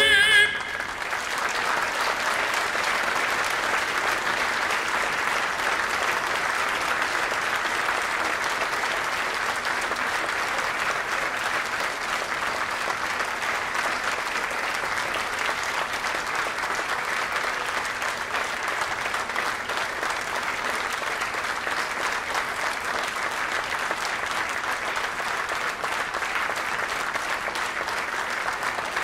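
A sung note with vibrato ends about half a second in, and a large audience then applauds steadily.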